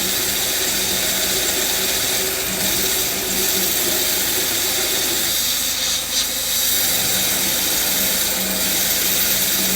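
Electric drill running steadily under load, driving a 1-1/2 inch hole saw to cut the mounting hole for a fuel level sender.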